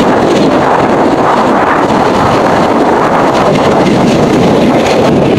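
Loud, steady wind rush on the microphone while riding a motorcycle, with the ride noise underneath.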